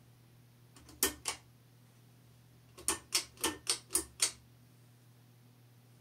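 Pull-chain switch of a Harbor Breeze Vue ceiling fan clicking as the chain is pulled. There are two clicks about a second in, then a quick run of six clicks, about three a second, starting the fan.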